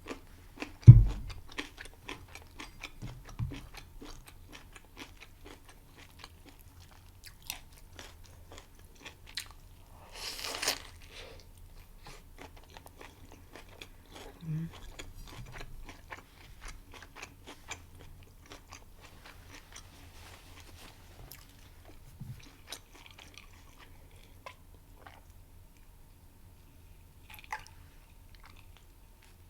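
Close-miked eating of a homemade burger meal: wet chewing and mouth clicks with scattered crunches, one louder crunch about ten seconds in. A sharp low thump sounds about a second in.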